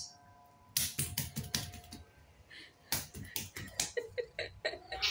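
Two quick runs of light clicks and taps, about a second in and again about three seconds in, then a few short, softer sounds near the end.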